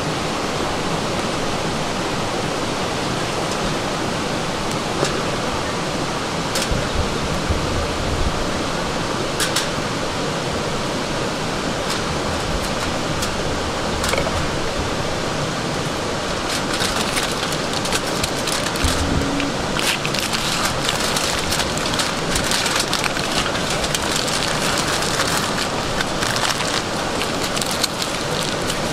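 Steady rush of running water throughout, with aluminium foil crinkling as hands handle it: a few crackles in the first half, then frequent crinkling through the second half as the foil is gathered up.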